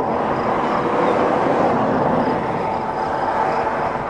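Steady, loud rushing of storm wind across the microphone, with gusty low buffeting.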